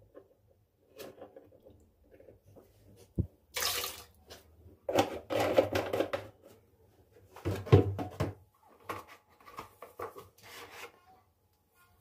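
Water running in three short spurts, the longest about a second and a half, among small knocks and clatter of things being handled.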